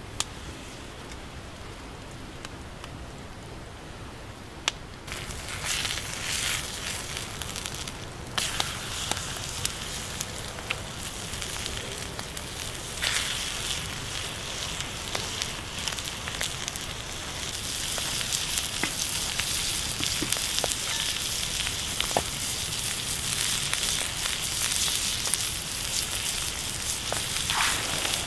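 Goat meat frying on a fire-heated stone slab: a steady sizzle with scattered pops that sets in about five seconds in and grows louder past the middle, over a quieter crackle of the wood fire at first.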